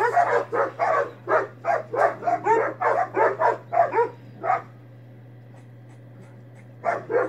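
Dogs barking at each other across a gate in a quick, loud run of about three barks a second. The barking stops about four and a half seconds in and starts again briefly near the end.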